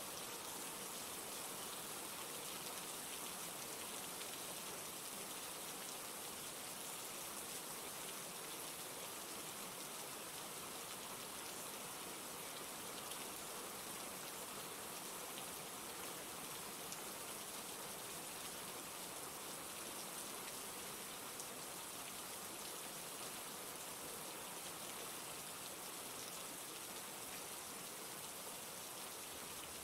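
Steady rain falling, a constant hiss with a patter of fine drops on a surface.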